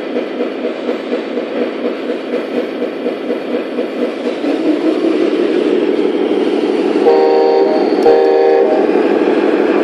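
Simulated diesel engine sound from an RC model Scania tractor unit, pulsing steadily at idle and then rising in pitch as the truck pulls away. Near the end come two short air-horn blasts, the second with a sharp click at its start.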